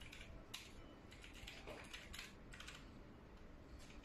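Faint, irregular clicking and tapping in quick clusters, with a sharper click about half a second in and a run of taps between about one and two and a half seconds.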